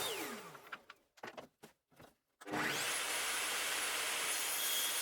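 Electric power saw motor spinning down, then a few knocks of wood being handled, then the saw started again: it whines up to speed about halfway through and runs steadily, ready to trim the wood strips at an angle.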